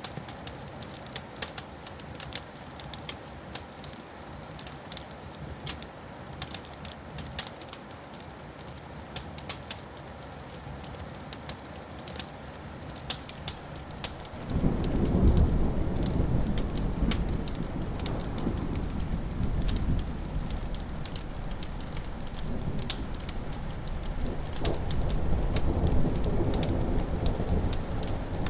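Wood fire crackling with frequent sharp snaps and pops. About halfway through, a loud, low rumble of thunder sets in suddenly and rolls on, swelling and easing.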